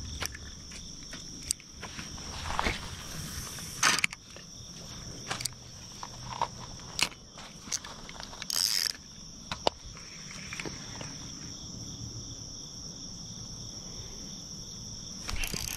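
Insects chirring in a steady, even high drone. Scattered clicks and knocks from a spinning reel and rod being handled come over it, with a brief louder rustle about halfway through.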